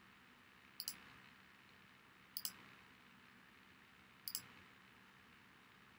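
Computer mouse clicking: three quick double clicks about a second and a half apart over faint room hiss, with another click at the very end.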